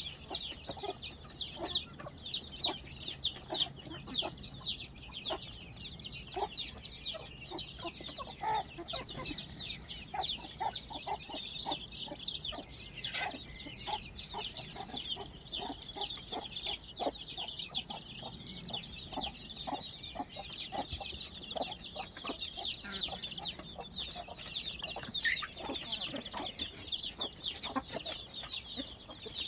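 A flock of chickens clucking while they feed, over a constant chorus of high, rapid chick peeping.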